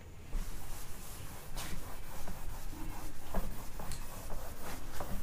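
A whiteboard being wiped with a cloth duster: repeated dry rubbing strokes across the board, starting a moment in.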